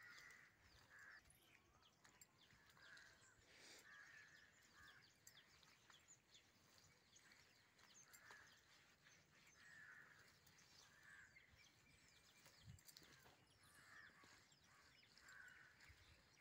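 Near silence: faint outdoor ambience, with soft short sounds repeating every second or so.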